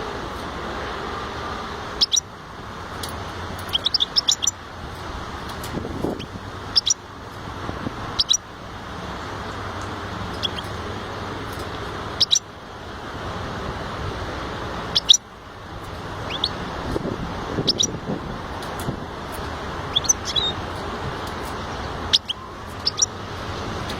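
A finch chirping in short, sharp high calls every second or two, sometimes in quick runs of two to four, over a steady background hiss.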